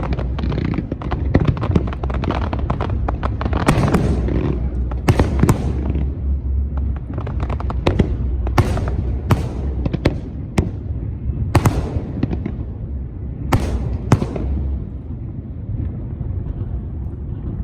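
Fireworks display: dense crackling, then a run of sharp aerial shell bursts, about a dozen, each with a ringing echo. The bursts thin out near the end.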